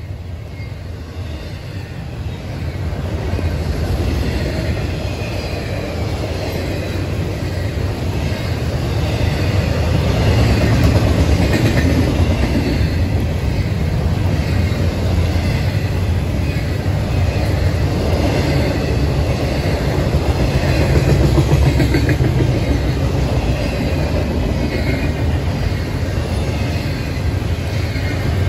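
Double-stack intermodal freight cars rolling past on the near track: a steady heavy rumble with wheels clicking on the rails, growing louder over the first few seconds and then holding.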